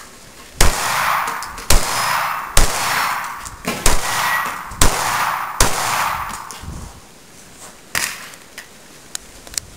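Caracal 9x19 pistol firing six shots, about one a second, each with a ringing tail, then a few faint clicks near the end.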